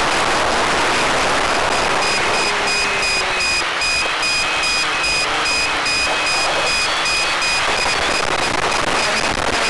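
Hissing static of a recorded analog FPV video downlink, with high tones pulsing on and off at a quick, even rate and a faint whine that rises and falls in pitch.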